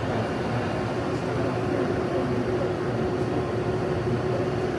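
Steady trade-show hall din: a constant machine and ventilation hum with faint distant voices mixed in.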